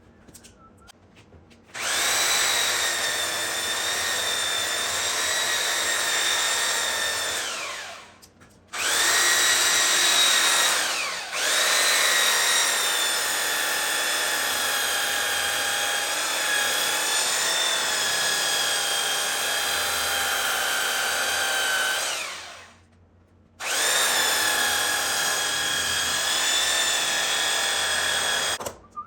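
Electric power sander running against cherry wood with a high motor whine, in three long runs. Each run ends with the motor switched off and winding down, and there is a brief dip in the middle run.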